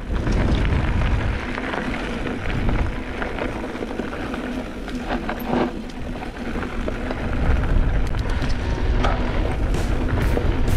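Wind rushing over the microphone as a mountain bike rolls downhill on a dirt singletrack, tyres crunching on dirt, with a few short knocks from the bike going over bumps.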